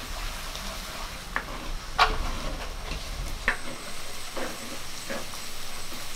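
Chopped onions and green chillies sizzling in oil in a clay pot while a spatula stirs them, scraping the pot about five times; the loudest scrape comes about two seconds in.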